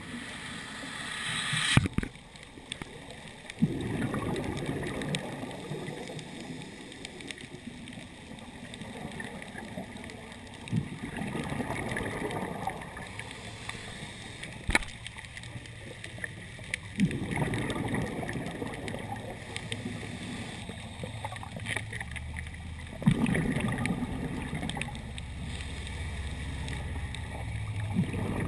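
Scuba diver's breathing through a regulator, heard through an underwater camera housing: long rushing, gurgling bursts of exhaled bubbles about every six seconds, with a few sharp clicks.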